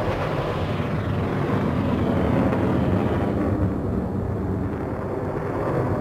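Bullet-time sound effect: a continuous low rumble whose higher hiss drains away over the first few seconds, leaving a steady deep drone.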